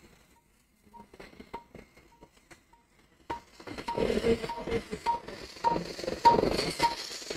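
Patient monitor beeping a short, steady tone with each heartbeat, about twice a second. The beeps are faint at first; from about three seconds in, louder operating-room noise rises under them.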